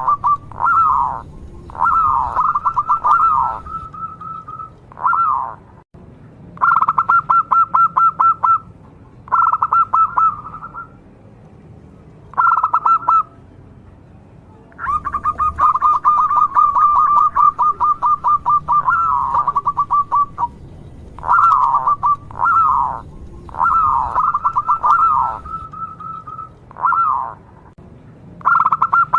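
Zebra dove (perkutut) singing: repeated phrases of fast trilled coos and short downward-sliding notes, with brief pauses between them. The longest trilled run comes about halfway through.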